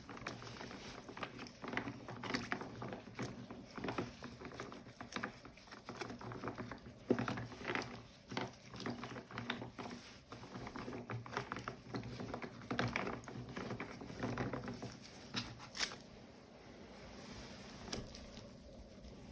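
Dense small clicks, scrapes and crackles of 3D-printed plastic keycaps being picked at to clear their stem cavities. It quietens near the end, where two sharper clicks stand out.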